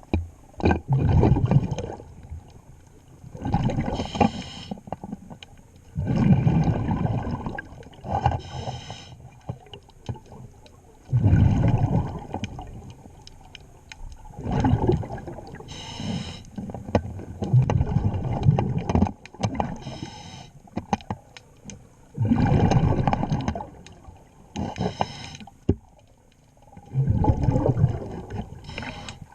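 Scuba diver breathing through a demand regulator underwater: a short hissing inhale, then a longer burst of rumbling, gurgling exhaust bubbles, repeating about every five seconds.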